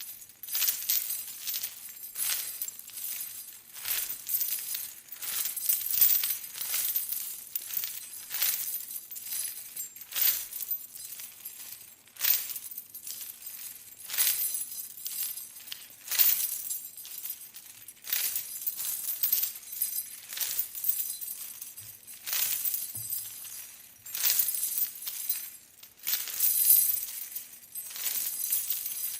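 Metal chains jangling and clinking in repeated surges, about one every second or two, in the rhythm of someone walking with them.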